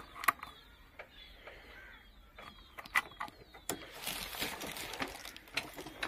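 Scattered clicks and rattles from handling a Honda CG125 motorcycle at its handlebars and ignition key, engine not running, with some rustling in the second half. Faint chirps of small birds come through in the first half.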